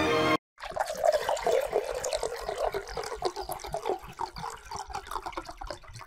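Water bubbling and gurgling in quick, irregular pops, slowly fading toward the end.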